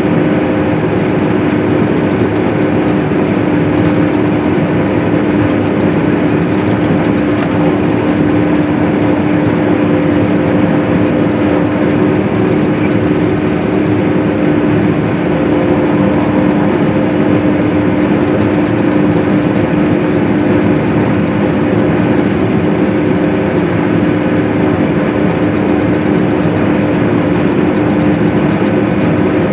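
Case IH hay swather running steadily while cutting hay, a constant machine drone with a steady hum over it.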